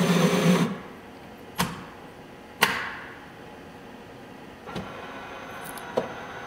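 A Java Brew Collection 125 espresso vending machine works through a brew cycle: its motor runs steadily and stops about half a second in. Then come four sharp mechanical clicks and knocks from inside the machine, the second the loudest, over a low steady hum.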